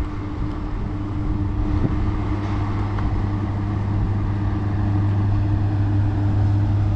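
SNCF BB 22200 electric locomotive pulling a train of double-deck coaches away from the platform, with a steady low hum over a rumbling noise that grows gradually louder as it approaches.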